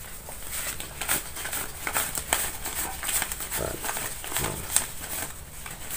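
A wad of paper banknotes rustling and crinkling in the hands as the notes are shuffled and straightened, with many small irregular crisp flicks of paper.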